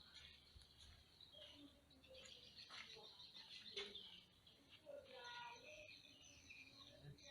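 Faint birds chirping and calling in short, scattered notes over a steady high hiss.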